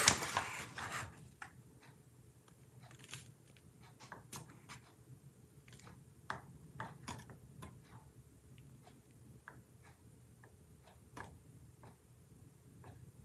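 A short clatter in the first second, then faint, irregular light clicks and taps of kitchen utensils and containers being handled while egg powder is weighed out.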